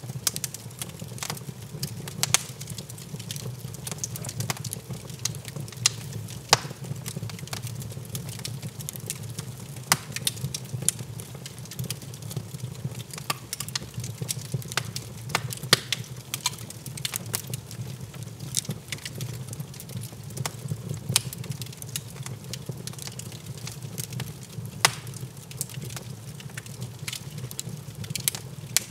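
Logs burning in an open fireplace: irregular sharp crackles and pops over a steady low rumble.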